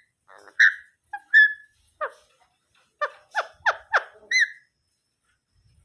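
Pet parrot making a string of short, soft chirps and squeaks, some quick falling notes, several in quick succession about two to four seconds in.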